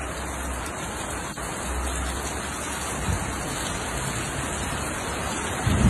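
Steady rain falling, an even hiss of rain on the ground and plants.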